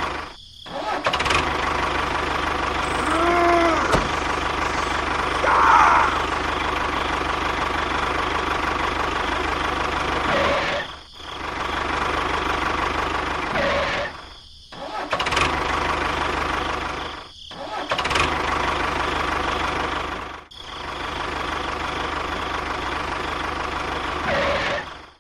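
A motor running steadily in a dense, even drone. It breaks off sharply and resumes several times.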